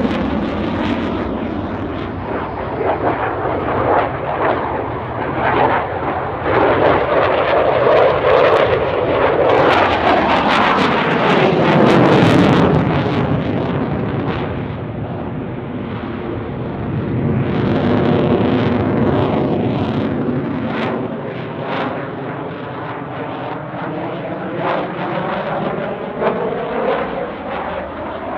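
Jet noise from the single Volvo RM12 turbofan of a Saab JAS 39C Gripen in a display routine. It swells and fades several times as the fighter passes and turns, loudest near the middle, with a shifting, phasing whoosh as it goes by.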